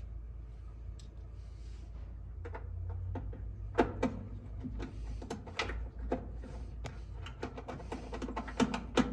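Small clicks and taps of metal parts and hand tools as a dryer thermal fuse is fitted and screwed in. They are few at first and come thick and fast from about four seconds in, over a low hum.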